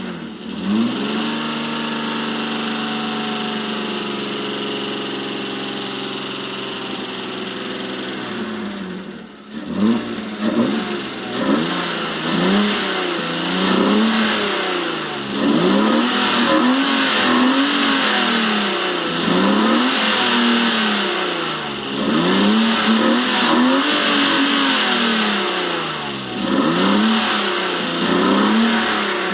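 BMW E36 engine being revved hard with Seafoam added to quiet a noisy lifter: held at a steady high rev for several seconds, a brief drop, then repeated throttle blips, the pitch rising and falling every second or two.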